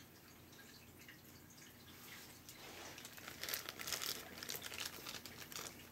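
A crinkling, crackling rustle that starts about two and a half seconds in, grows louder, then eases off near the end.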